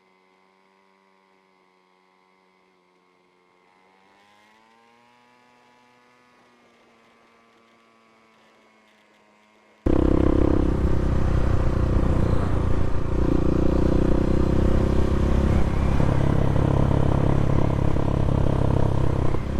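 Bashan 250 dirt bike engine, first heard faint and muffled as a steady tone that rises slightly in pitch about four seconds in. About ten seconds in, it cuts abruptly to the engine running loud with wind rushing over the microphone.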